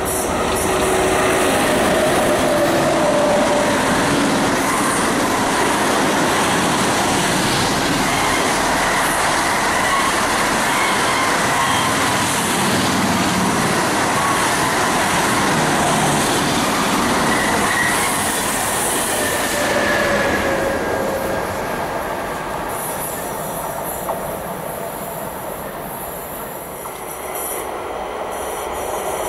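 A freight train hauled by an ÖBB Taurus electric locomotive, carrying lorries on low-floor wagons, running past with a steady rumble of wheels on rail and occasional faint wheel squeal. The noise fades away after about twenty seconds as the last wagons pass.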